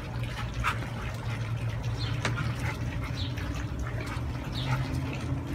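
Outdoor ambience: a steady low hum with faint, scattered short chirps and ticks.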